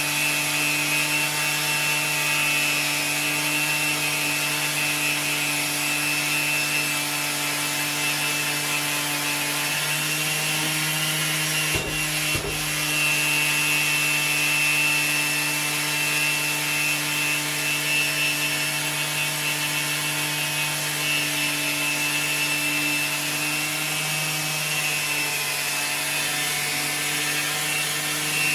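Makita orbital sander running steadily against an alloy wheel, a constant motor hum with the hiss of sandpaper rubbing the metal. A couple of brief knocks come about twelve seconds in.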